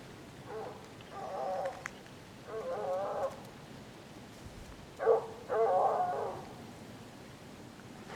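Russian hound baying on the trail: a run of about five drawn-out, wavering bays with short pauses between them, the two longest a second or so each.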